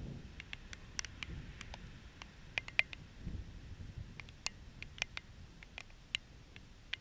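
Distant thunder rumbling low and unevenly, with scattered sharp ticks and clicks over it at irregular intervals; the loudest tick falls just before the middle.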